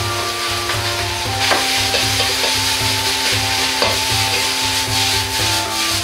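Metal ladle stirring and scraping rice around a hot iron wok, with the sizzle of frying and two sharp clanks of ladle against wok.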